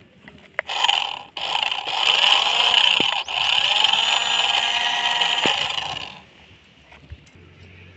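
Toy remote-control car's small electric motor and gearbox whirring as it drives over loose dirt, in three bursts. It starts under a second in, breaks off briefly twice and stops about six seconds in.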